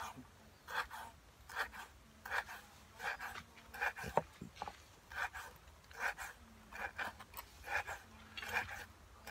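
Kitchen knife sawing through beef innards on a wooden cutting board: a short rasping stroke about every three-quarters of a second.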